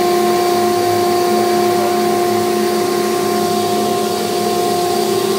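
Steady motor whine with an even pitched hum from a shop-built MechMate CNC router with its vacuum hold-down system running.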